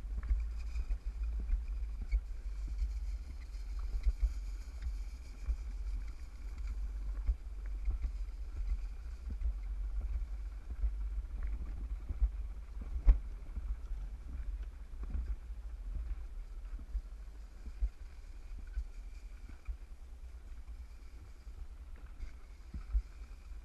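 Alpine slide sled running down its trough: a steady low rumble with scattered knocks and clatters, one sharper knock about halfway through.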